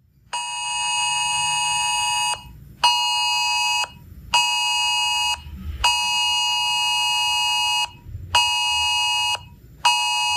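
Emergency alert attention tone sounding in a repeating pattern: one long two-second blast, then two short one-second blasts, twice over. This is the cadence of a Wireless Emergency Alert.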